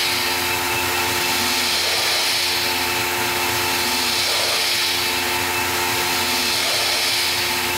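Tormach PCNC 1100 CNC mill spindle turning a small carbide bull-nose end mill as it cuts aluminium, a cleanup pass in a pocket corner. A steady spindle whine over the hiss of the cut, with the cutting noise swelling and easing slowly.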